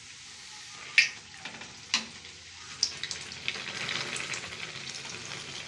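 Pua deep-frying in hot oil in a kadhai: a steady sizzle that grows louder in the second half. A few sharp clicks of metal utensils come about one, two and three seconds in.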